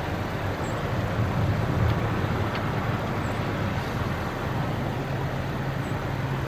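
Pickup truck driving through shallow floodwater past and away, its engine running and its tyres swishing through the water, over a steady low rumbling background.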